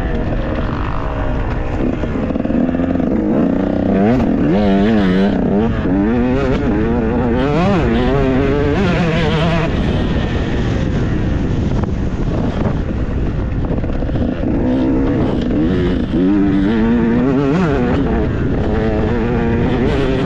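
Enduro dirt bike engine revving up and down over and over, its pitch swinging quickly with the throttle, over a constant low rumble.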